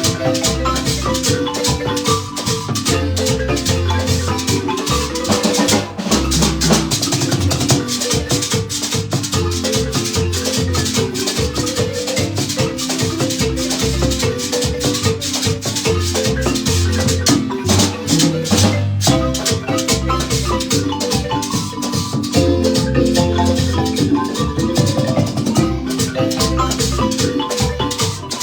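Guatemalan marimba ensemble playing a lively tune, with rapid mallet notes over a steady bass line, accompanied by maracas or rattles and drums.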